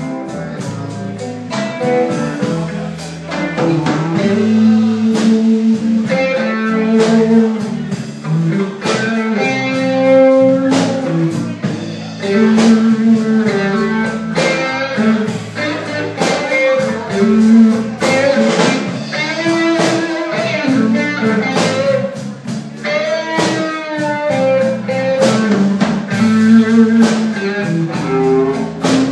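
Live blues band playing an instrumental stretch: guitar lines over bass and drums with a steady beat.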